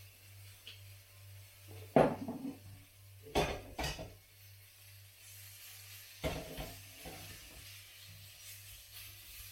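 Cooking utensil knocking and scraping against a wok as pieces of chicken are stirred and tossed in hot oil, four clattering knocks, two of them close together, with a faint sizzle of frying between them. A low steady hum runs underneath.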